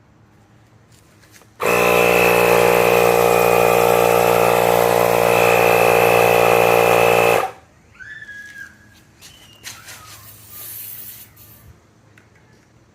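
A tyre pump or compressor inflating a bicycle tyre: a loud, steady motor buzz with air hiss that starts suddenly, runs for about six seconds and cuts off.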